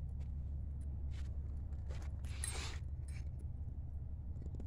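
Footsteps crunching on wet gravel, a few scattered steps with one louder scuff about two and a half seconds in, over a steady low rumble.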